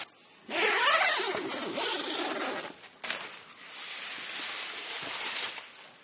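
Zipper on a North Face Lander 2 tent door being pulled open in two long strokes. The first starts about half a second in and the second about three seconds in.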